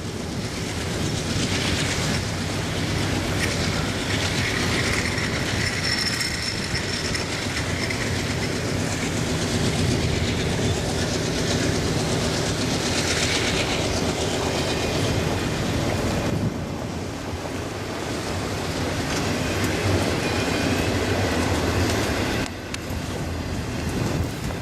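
Freight train rolling past: steel wheels clicking over the rail joints under a steady low drone, with a brief high wheel squeal a few seconds in.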